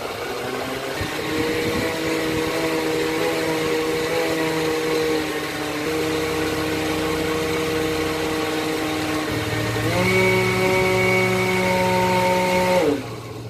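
Countertop electric blender motor running steadily as it blends a liquid sauce. About ten seconds in its whine jumps to a higher, louder pitch, then it winds down and stops near the end.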